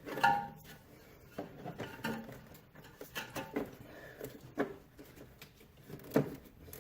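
Scattered light knocks, clicks and rubbing as a rubber serpentine belt is worked by hand over an idler pulley and against engine parts, loudest at the start and with a sharp knock about six seconds in.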